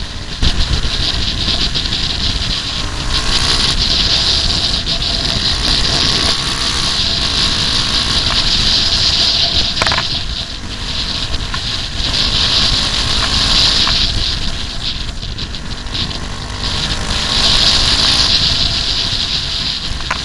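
Dirt bike engine running under way on a rough trail, its revs rising and falling, with heavy wind rumble on the bike's camera microphone.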